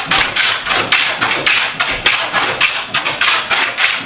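Jack plane shaving across the grain of a glued-up cedar panel in short, quick rasping strokes, about three or four a second. This is traversing, to level the uneven glue-up by hand.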